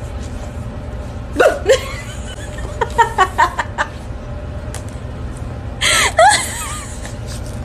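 Person laughing: two short yelps about one and a half seconds in, a quick run of giggles around three seconds, and a loud squealing laugh about six seconds in, over a steady low hum.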